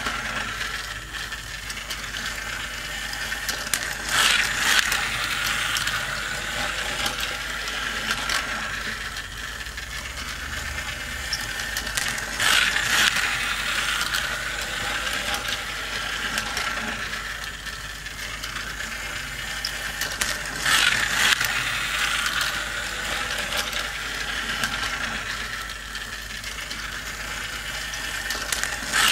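Motorised toy car racing track running: plastic gears whir and click steadily while small plastic toy cars rattle along the track, with a louder clatter about every eight seconds.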